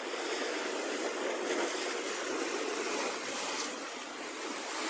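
Rough sea washing and breaking against rocks at the shoreline: a steady rushing noise, briefly stronger about three and a half seconds in.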